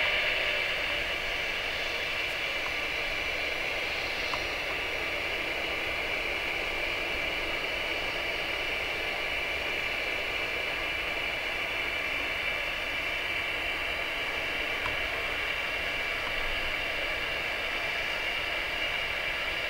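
Steady whine and rush of the CFM56 turbofan engines of an Airbus A320-216 at taxi power.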